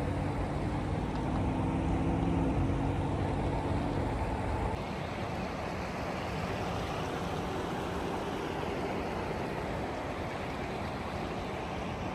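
Steady vehicle noise with a low hum, which changes and drops a little about five seconds in.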